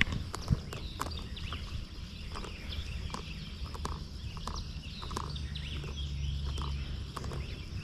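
Footsteps through leaf litter and twigs, making scattered sharp clicks, with birds chirping and calling in the background over a low rumble.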